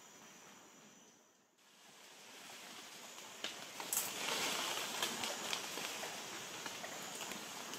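Rainforest ambience. A high, steady insect trill fades out in the first second and a half. Then a rustling, pattering hiss with scattered ticks builds up and holds.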